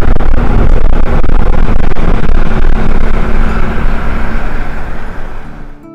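Camper van on the move, heard from inside the cab: a loud steady rush of wind and road rumble with a low engine drone, fading away near the end.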